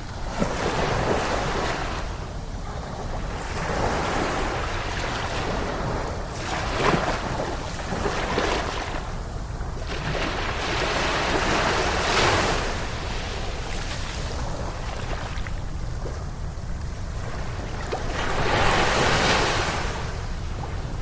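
Ocean surf breaking and washing on a beach, swelling and fading every few seconds, with the biggest surge near the end over a steady low rumble.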